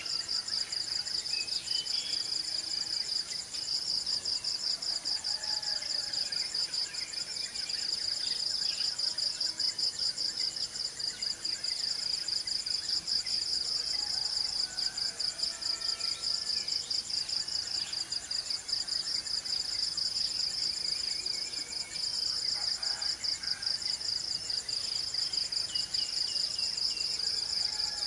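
A steady chorus of insects, cricket-like, trilling in a high, fast-pulsing buzz, with scattered short bird chirps and calls over it.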